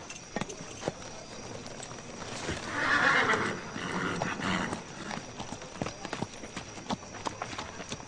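A horse's hooves clip-clopping in scattered, uneven steps, with the horse whinnying about three seconds in.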